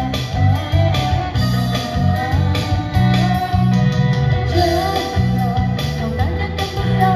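Live band music through a PA speaker: a dangdut song with electric guitar and keyboard over a heavy bass line, and a woman singing the melody into a microphone.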